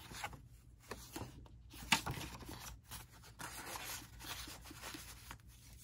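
Faint rustling and sliding of paper journaling cards and the journal's pages being handled, with one short sharp tap about two seconds in.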